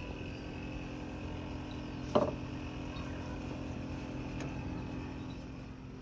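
A steady low mechanical hum with a faint high whine, like a motor or engine running. About two seconds in there is one short voice-like sound.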